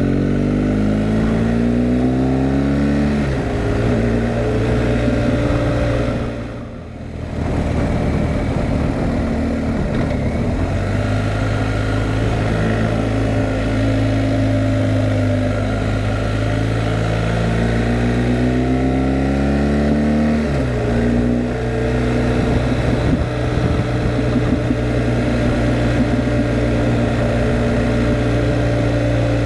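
Motorcycle engine accelerating, its pitch climbing and then dropping sharply at an upshift about three seconds in; it pulls steadily, climbs again and shifts up once more about twenty seconds in.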